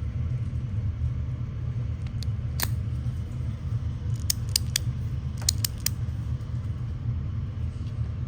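Sharp clicks from a magnetic haptic fidget coin being worked in the hand: a single click, then two quick runs of three or four clicks. A steady low hum runs underneath.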